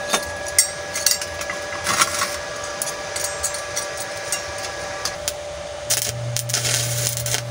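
Steel pieces knocking sharply as they are set on a metal workbench, over a steady hum. About six seconds in, a stick (MMA) arc welder strikes an arc and runs with a crackling sizzle over a low buzz, welding a steel hinge in place.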